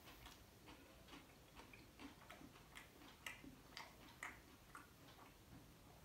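Faint chewing of a flaky, crisp lachha paratha: soft mouth clicks and crunches, about two a second.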